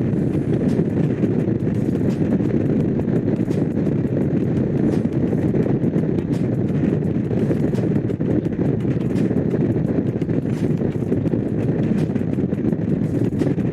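Honda CX500's liquid-cooled V-twin engine running steadily while the motorcycle is ridden at an even pace, with wind rushing over the microphone.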